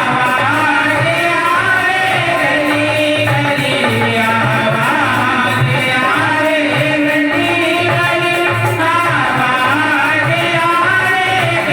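Hindi devotional bhajan: a sung melody over a steady hand-drum beat, loud and even throughout.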